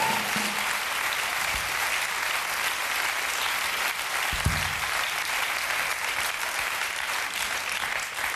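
Studio audience applauding steadily as a talk-show guest comes on, with one low thump about four and a half seconds in.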